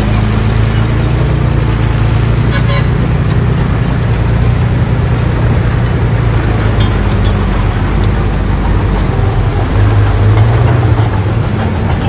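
Komatsu D31P crawler bulldozer's diesel engine running steadily under load, with a couple of short metallic clanks and a brief swell in loudness near the end.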